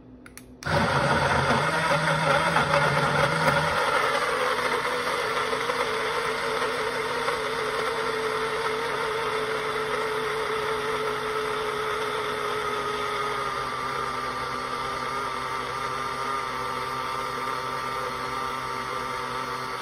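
Portable rechargeable bottle blender's motor switching on about half a second in and running with a steady high whine. For the first few seconds there is a coarse low rumble as it chops banana chunks, then it settles to an even whine as the contents blend smooth.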